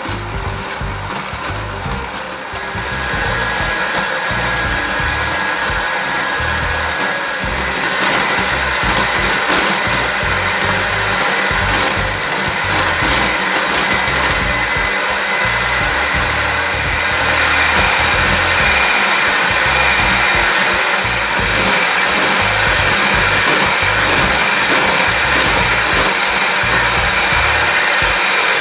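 Electric hand mixer running continuously, its whisk beaters whipping instant coffee, sugar and hot water in a glass bowl into a thick foam. The motor gets louder about two seconds in. Fine ticking comes through at times.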